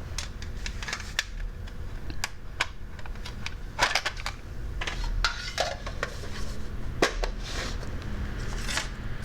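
Small miniature toy objects being handled and set down, clicking and clacking irregularly against one another and a hard surface.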